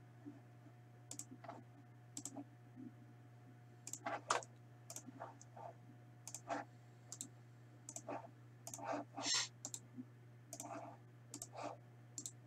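Faint, irregular clicks of a computer keyboard and mouse as team and name entries are set up in a randomizer, over a steady low electrical hum.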